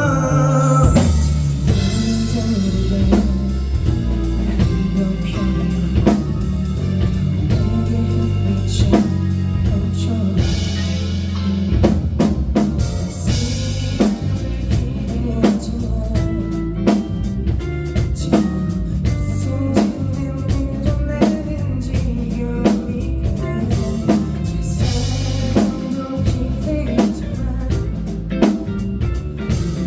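A rock band playing a song: a drum kit keeping a steady beat with sharp snare hits, over guitar and bass.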